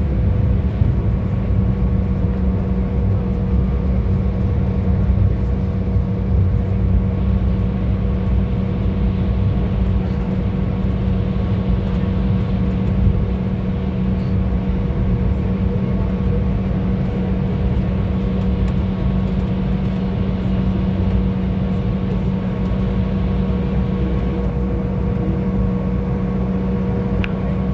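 Airliner cabin noise while taxiing: a steady low rumble with a constant drone from the engines and cabin air.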